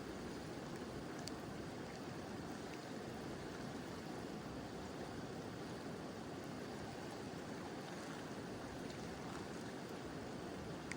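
Mountain river flowing steadily, an even rush of water with gentle rain falling, and a few faint high ticks scattered through it.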